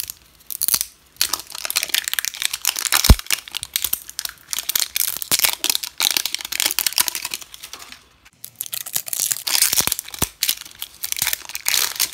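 Crinkly plastic wrapping crumpling and tearing as an L.O.L. Surprise Lil Sisters ball is unwrapped by hand. There is one sharp crack about three seconds in and a short pause a little after eight seconds.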